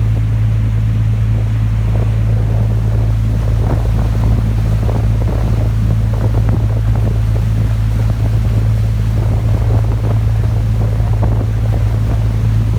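Yacht's engine running with a steady low drone, wind buffeting the microphone and water rushing and slapping against the hull.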